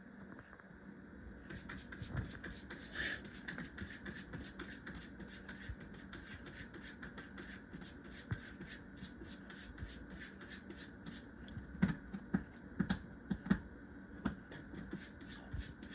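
A domestic cat scratching in a litter box: a long, rapid, even run of scratching strokes, about four a second, that starts about a second and a half in, with a few louder knocks against the box near the end.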